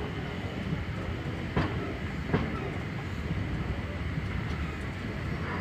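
Passenger train running, heard from inside the carriage at an open window: a steady rumble of wheels on rails, with two sharp clicks about a second and a half in and again under a second later as the wheels pass over rail joints.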